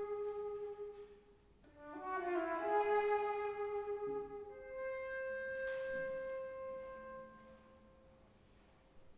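Flute and clarinet holding soft, long sustained notes in a contemporary chamber piece: one note fades out, a new overlapping group of notes enters about two seconds in, and a single long tone then dies away almost to silence near the end.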